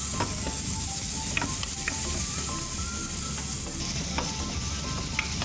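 Butter melting and sizzling in a hot pan, a steady hiss with a few small pops.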